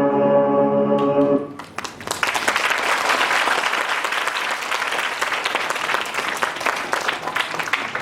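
Held notes of music end about a second and a half in, then an audience applauds, a steady dense clapping that continues for several seconds.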